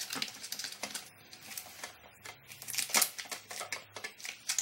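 Screwdriver turning a plastic toilet-seat hinge bolt loose: irregular small clicks and scrapes of plastic, the loudest about three seconds in.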